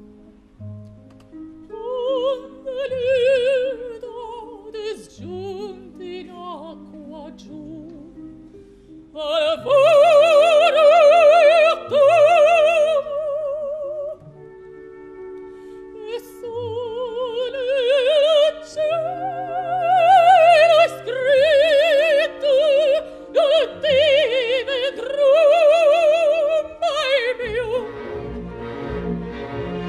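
Operatic soprano singing with a wide vibrato over a symphony orchestra's accompaniment. She begins softly and, from about nine seconds in, sings loud, long-held high notes.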